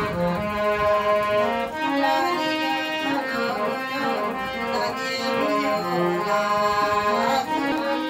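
Harmonium playing a melody of held reed notes, the chords changing every second or so.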